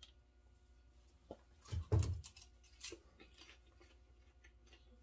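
Quiet handling and eating sounds: popcorn picked from a plastic bowl and chewed, a few soft rustles and crunches. The loudest, with a dull thump, comes about two seconds in.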